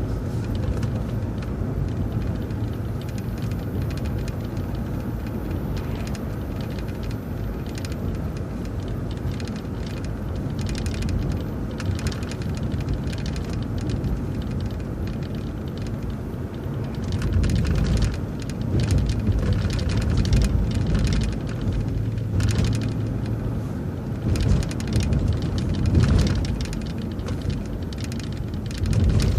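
City bus driving along, heard from inside: a steady engine and road rumble, with bursts of rattling and knocking from about 17 seconds on.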